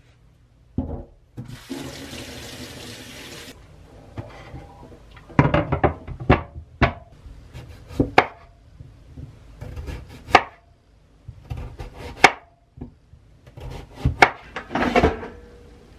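Kitchen tap running for about two seconds while a raw sweet potato is rinsed under it. Then a chef's knife slices through the sweet potato, knocking on a wooden cutting board in a series of sharp cuts one to two seconds apart.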